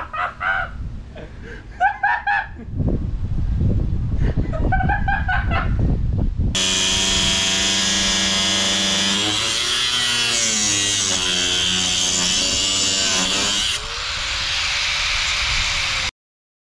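Angle grinder cutting aluminium sheet, starting a few seconds in: a loud, steady motor whine with a harsh hiss that sags in pitch twice as it bites into the metal. Near the end it drops to a fading whine as the disc spins down. Some short voices come before it starts.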